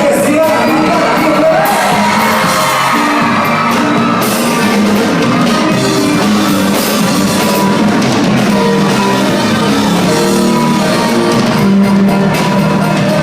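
Live band music with a lead singer, held notes sounding over a steady accompaniment, loud and even throughout.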